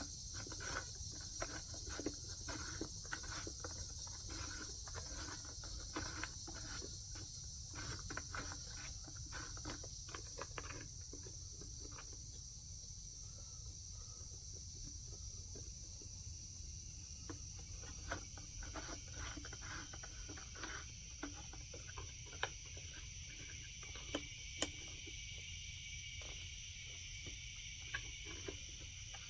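Crickets chirping steadily in the background, over frequent light clicks and taps from hands working the chainsaw's chain and tensioner as the chain is tightened, which thin out for a few seconds midway.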